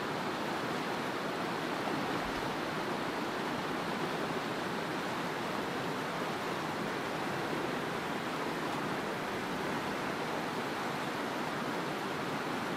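A stream running over smooth bedrock ledges in small cascades: a steady rush of flowing water that holds even throughout.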